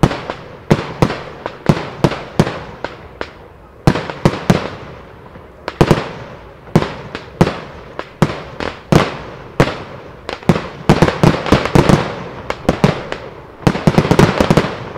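Aerial fireworks bursting in the sky: a rapid, irregular run of sharp bangs, each trailing off in echo, thickening into a dense volley near the end.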